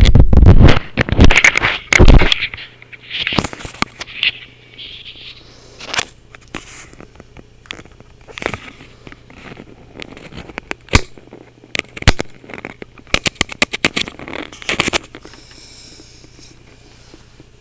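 Loud, distorted bursts of noise for about the first two seconds, then a run of sharp clicks and crackles, some in quick clusters, picked up at very close range by a Logitech webcam's built-in microphone. Under it all runs a steady low electrical hum from the webcam mic, a hum that shows when recording through Logitech's software.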